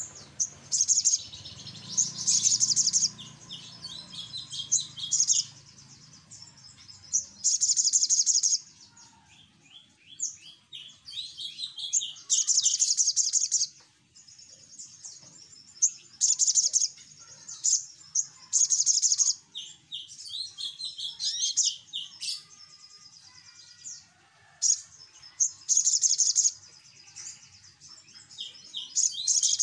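A sogok ontong sunbird gives loud, high-pitched chattering calls in repeated bursts of rapid notes. Each burst lasts about a second, with short pauses between them.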